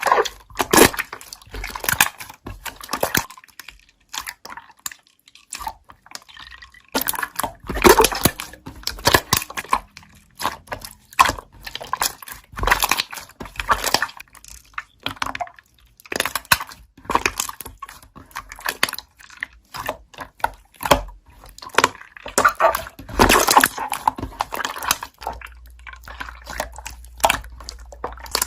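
Slime being squeezed and poked by hand, its trapped air bubbles popping in quick, irregular clusters of sharp, wet clicks and pops.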